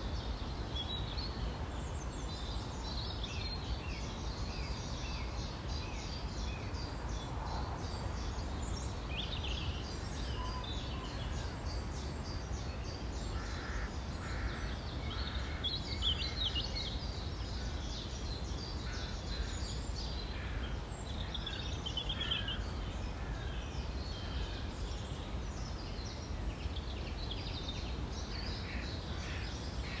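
Several woodland songbirds singing and calling, with short repeated phrases overlapping throughout, over a steady low rumble.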